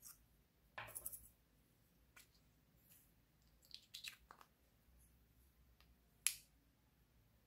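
Faint, scattered clicks and small rattles from small plastic pots of glitter and decorations being handled and tipped out. There is a cluster of clicks about a second in, another around four seconds, and one sharp click just after six seconds.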